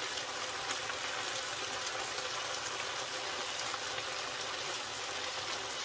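Stir-fried broccoli and carrots sizzling steadily in a frying pan on the hob.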